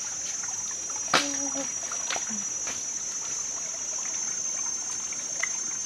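Shallow stream trickling over rocks, under a steady high-pitched buzz. About a second in there is a sharp tap, followed by a brief vocal sound.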